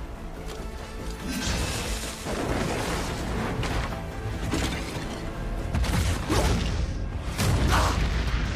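Dramatic fight score under sword-fight sound effects: blade whooshes and heavy impact booms, several of them, growing denser in the second half.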